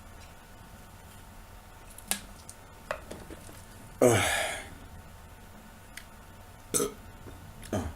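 A man burps once, loud and long, about four seconds in, the pitch sinking as it goes. A few short clicks come before and after it.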